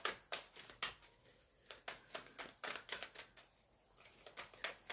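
A tarot deck being shuffled by hand: a quick, irregular run of light card clicks and rustles.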